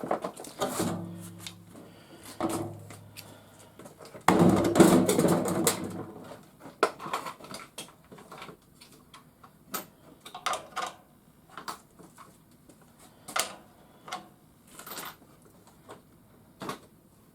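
Cordless power driver spinning briefly twice, backing out screws from the garage door opener's housing, the second run louder. Then scattered clicks, taps and clinks of metal and plastic parts being handled.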